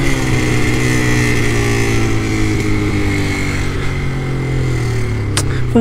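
Caloi mobilete moped's small two-stroke engine running at a steady cruising speed while riding, with wind rumble on the microphone. The pitch sags slightly early on and then holds steady. There is a single short click near the end.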